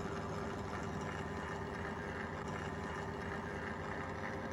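48-volt electric motor turning a sail drive, running with a steady, quite silent hum. The sail drive has no gear oil in it yet, so it keeps some noise.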